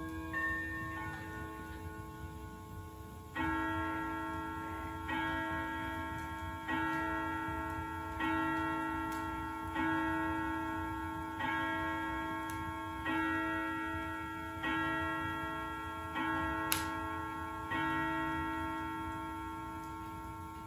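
Seth Thomas Medbury 6W mantel clock striking ten o'clock: ten evenly spaced strokes about a second and a half apart, each ringing on and fading, after a few seconds of fading chime tones.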